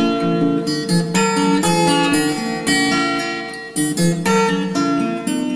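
Background music: plucked acoustic guitar strumming a bright, rhythmic tune.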